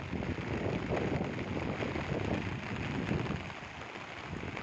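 Steady rush of fast-flowing floodwater with rain falling. Wind buffets the microphone heavily and eases about three and a half seconds in.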